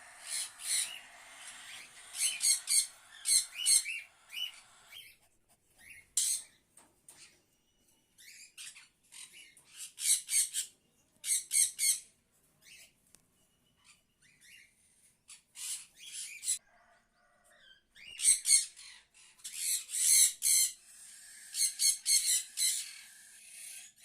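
Cockatiel chicks making harsh, raspy calls in clusters of rapid repeated strokes, broken by short pauses.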